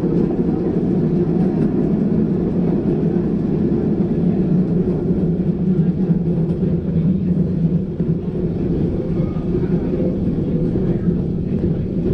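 Vintage Melbourne streetcar running along the track: a steady low rumble of the car's wheels on the rails and its running gear.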